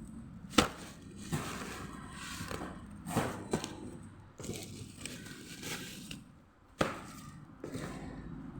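Cardboard hamper boxes being handled and unpacked: a few sharp knocks and clicks with soft rustling between them, the loudest about half a second in and again near seven seconds.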